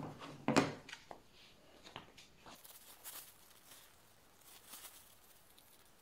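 Close handling of a plastic TV remote on a wooden table, with a sharp knock about half a second in, then soft, scratchy rustling of a paper tissue being crumpled and rubbed.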